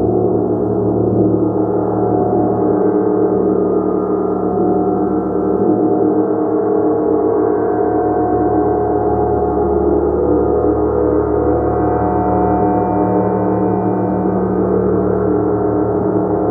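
A large gong played continuously, a dense sustained wash of many overlapping ringing tones with no single distinct strike, its shimmer shifting slowly over time.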